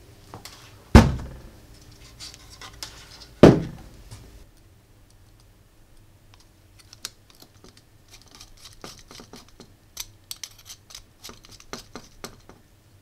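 Two thumps about two and a half seconds apart, then a run of small clicks and scratches as a small screwdriver works the screw terminals of an AP50L amplifier board, fastening speaker wires.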